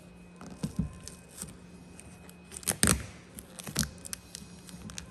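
Gloss black vinyl wrap film being handled and worked onto a part, giving scattered small clicks and rustles. The loudest is a short cluster a little before the middle, and a faint steady hum runs underneath.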